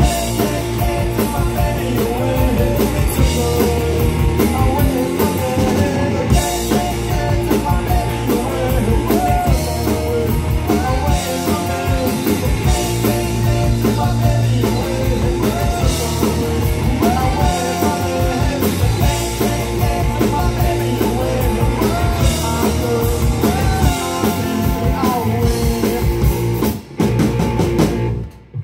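Live punk rock band playing: sung lead vocal over electric guitar, electric bass and a drum kit. After a brief break the song stops abruptly near the end.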